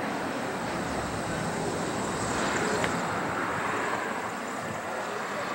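Steady outdoor background noise, an even hiss with no distinct event, of the kind made by distant traffic or wind.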